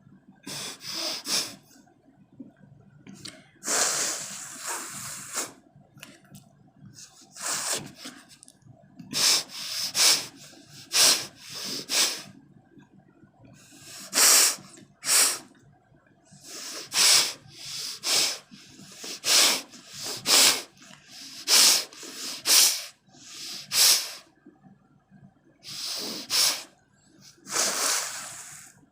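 A person blowing her nose hard without a handkerchief, about twenty short noisy blasts of air forced out through the nostrils in irregular runs. With a dry nose, no cold, little comes out.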